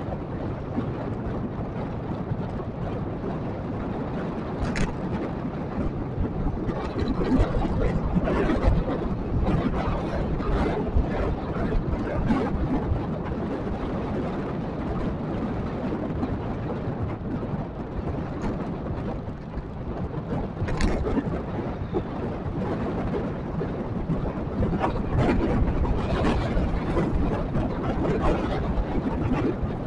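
Steady wind and road rumble heard from a camera on a moving vehicle, with nearby motorcycle traffic; it swells louder about a quarter of the way in and again near the end, with a few brief sharp ticks.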